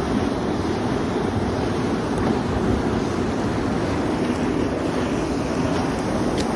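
Whitewater river rapids rushing steadily close by.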